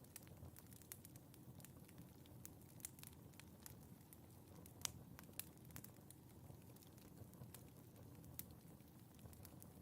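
Wood fire burning in a fireplace: a low, soft rumble of flames with irregular sharp crackles and pops, the loudest pop just before the middle.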